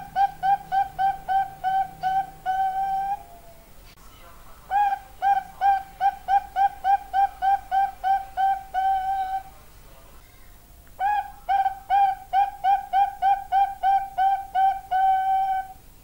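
Zebra dove (perkutut) cooing: runs of quick, clear, whistle-like notes at about three a second, each run closing on a longer held note. One run ends about three seconds in, and two more follow after short pauses.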